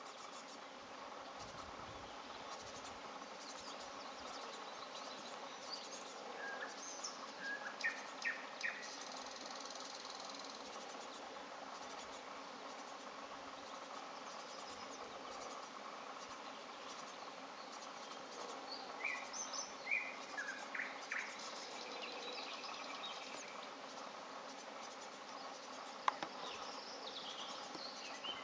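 Steady chorus of insects in grassland, with short bird chirps in two brief clusters, about a quarter of the way in and again about two-thirds through, and a single sharp click near the end.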